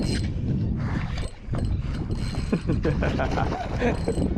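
Spinning reel being wound, its handle and gears clicking, with wind noise on the microphone.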